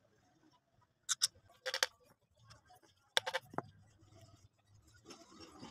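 Sharp metal clinks and knocks in a few quick clusters, about a second in, near two seconds and around three and a half seconds, one with a short ring, as steel parts are handled and fitted against a power steering box housing during reassembly.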